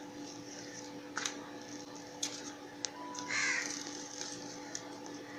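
A crow cawing once, a harsh call a little over three seconds in, over a steady low hum, with a few faint clicks and taps.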